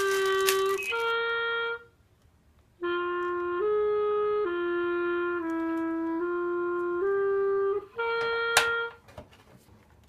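Background music: a slow melody of held notes, broken by two short pauses. A single sharp click sounds near the end.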